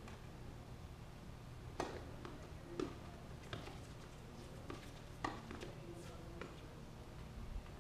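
Tennis balls being struck by racquets and bouncing during a doubles rally: a string of sharp pops roughly a second apart.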